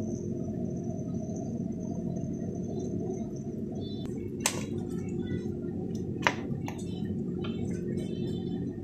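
A steady low hum, then from about four seconds in a utensil clinks and taps against a metal pan while squash in coconut milk is stirred, with two sharper knocks among the lighter ticks.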